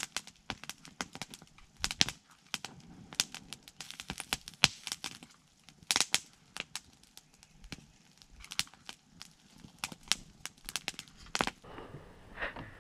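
Wood campfire crackling and popping: irregular sharp snaps, several a second, thinning out near the end.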